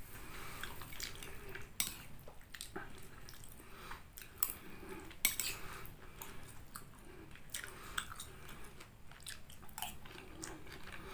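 Metal fork and spoon clinking and scraping against a ceramic bowl as chicken noodles are scooped, in scattered sharp clinks, with chewing between them.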